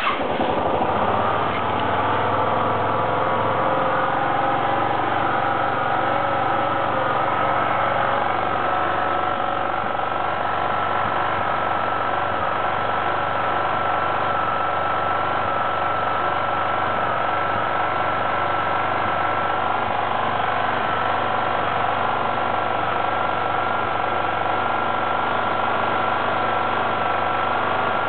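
Suzuki GSR125 scooter's single-cylinder four-stroke engine settling just after starting, then idling steadily, shown by the owner as making an abnormal noise.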